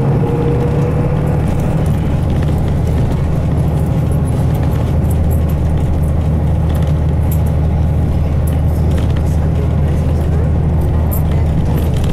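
Interior running sound of a Nissan Diesel Space Runner RM bus: its FE6F six-cylinder diesel engine pulling steadily as the bus drives along, heard inside the cabin. A tone climbs slightly in pitch over the first second and a half, then the engine runs on steadily.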